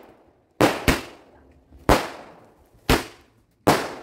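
Aerial fireworks (sky shots) bursting overhead: five sharp bangs, two in quick succession about half a second in, then roughly one a second, each dying away over about half a second.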